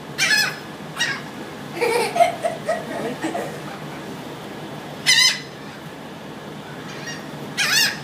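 Gulls hovering close overhead give short, harsh, high squawks, one at a time and a few seconds apart, as they beg for food.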